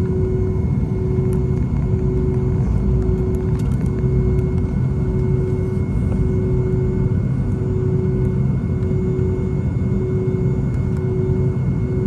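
Steady engine rumble and hum heard inside the cabin of a Boeing 757-232 with its Pratt & Whitney PW2037 turbofans, holding an even level. Over it, a mid-pitched tone drones in a regular on-off pulse about once a second.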